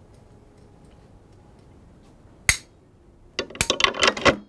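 Würth mobile clamp being worked by hand: one sharp click, then about a second later a quick run of clicks and rattles as its parts are moved.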